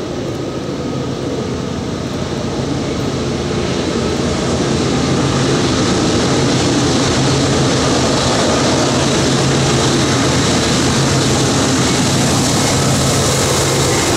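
Three CSX diesel locomotives hauling a loaded coal train, their engines giving a steady low drone that grows louder over the first few seconds as they approach, then holds level as they pass close by.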